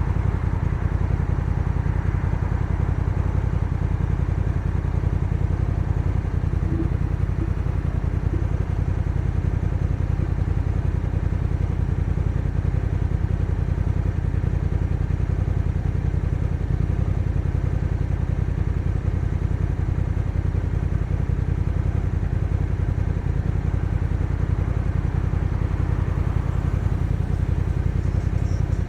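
Honda NT1100's 1,084 cc parallel-twin engine running steadily, a constant low rumble with no revving.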